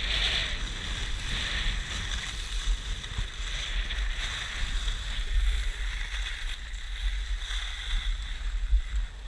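Skis sliding and scraping over packed snow, a steady hiss, under the low rumble of wind buffeting the camera microphone.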